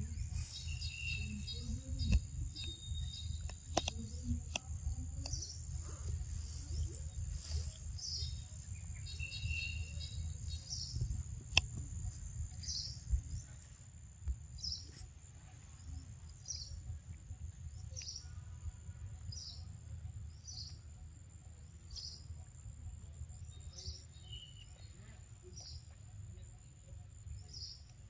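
Outdoor ambience: a bird repeating a short high chirp about once a second, over a steady high-pitched insect drone and a low rumble. A few sharp clicks fall in the first half, where the rumble is louder.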